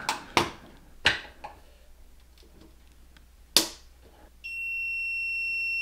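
A few light clicks of handling, then a sharp click as the battery's output breaker is switched on. About a second later a steady high electronic beep sounds for about two seconds as the system powers up.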